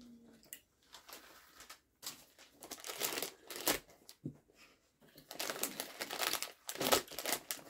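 Plastic snack wrappers crinkling and rustling as they are handled. The sound comes in irregular bursts, quiet at first, with a short lull about halfway and more steady crinkling in the second half.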